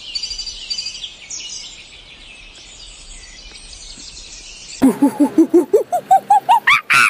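Small birds chirping and singing together. About five seconds in, a macaque starts a loud, rapid series of short calls that climb step by step in pitch, several a second.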